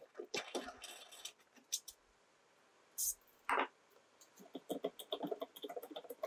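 Hand-pumped hydraulic knockout punch working through an aluminum rib: scattered light clicks and knocks from the pump and punch. Two short, louder sounds come about three and three and a half seconds in, and a run of light clicks follows near the end.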